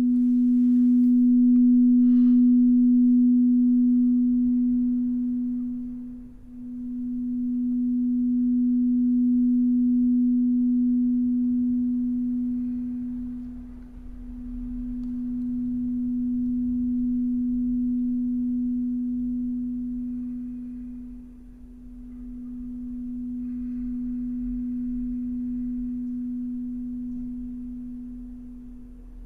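A single sustained, nearly pure low tone from a sound-healing instrument or tone, swelling and fading in slow pulses with a dip about every seven and a half seconds.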